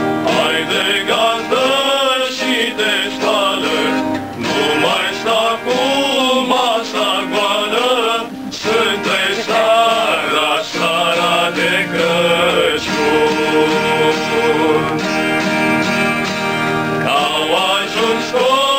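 Several men singing a Romanian Christmas carol (colind) together, accompanied by a strummed acoustic guitar.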